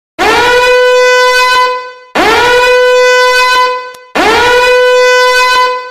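Meme air horn sound effect: three long, loud blasts about two seconds apart, each sliding up in pitch at its start and then holding one steady note.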